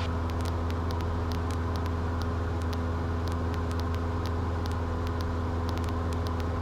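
Cessna 172's piston engine and propeller droning steadily in flight, heard from inside the cockpit as a constant low hum with a few faint ticks.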